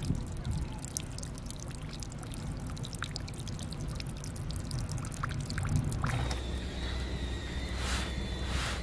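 Water pouring and trickling. About six seconds in it gives way to a steady low hum with a faint high tone and a few short swishes.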